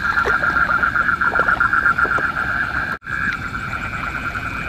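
Night chorus of frogs calling in a flooded rice paddy: a dense, fast-pulsing trill. All sound cuts out abruptly for a moment about three seconds in, then the chorus resumes.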